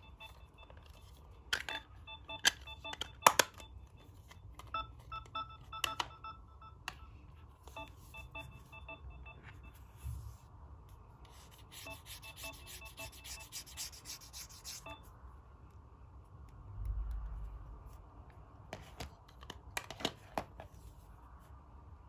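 Phone alarm beeping in a quick, evenly repeating pattern, strongest in the first several seconds and fainter after, mixed with clicks and rubbing from the phones and a plastic case being handled.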